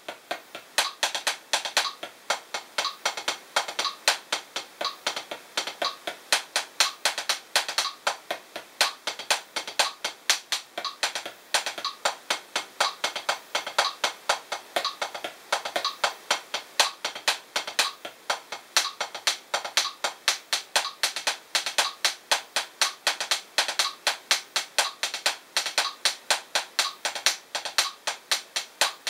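Los Cabos 7A hickory drumsticks striking a P4 rubber practice pad, playing the drag paradiddle #2 rudiment at 60 bpm. It is a steady, even run of sharp taps, with quick drag grace notes before the main strokes.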